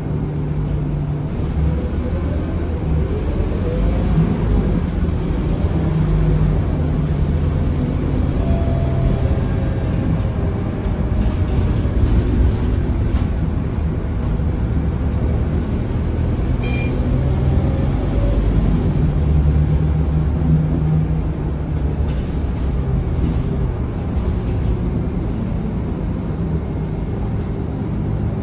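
Scania K230UB Euro V bus heard from inside the cabin: the diesel engine pulling, with an ear-piercing high turbocharger whistle that rises and falls with the throttle, climbing twice as the bus accelerates. The whistle dies away in the last few seconds as the bus slows.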